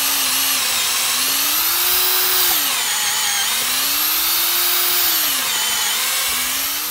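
Cordless drill boring a 15/64-inch pilot hole for a 3/8-inch lag bolt into timber. The motor runs continuously, its pitch rising and sagging about three times as the bit loads up in the wood and is eased out and back in, ending with the bit driven in to the chuck.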